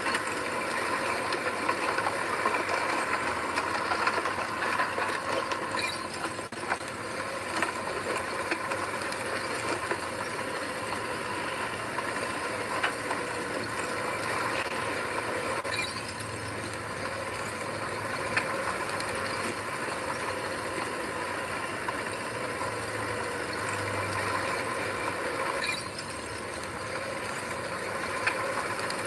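Heavy earthmoving machinery running steadily: an engine's drone mixed with continuous mechanical rattling and clatter.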